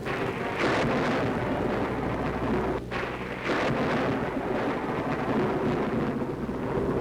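Storm on an old film soundtrack: thunder rumbling with the rushing noise of wind and rain. A low steady hum runs underneath, and the rumble dips briefly about three seconds in.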